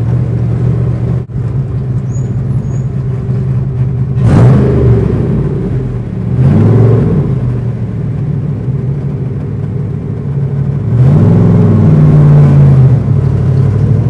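Factory Five Cobra roadster's V8 exhaust burbling at low speed in a concrete parking garage. It is blipped up and back down about four seconds in and again about six and a half seconds in, then revs up louder and holds there from about eleven seconds.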